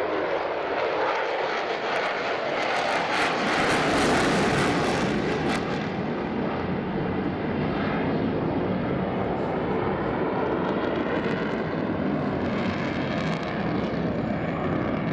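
Jet engine noise of an F-16 fighter flying a display climb overhead, loudest about four seconds in and then holding steady.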